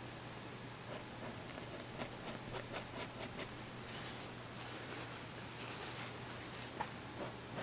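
Faint scratchy rubbing and light taps of fingertips working oil paint into coarse canvas, in irregular short strokes, over a steady hiss and low hum.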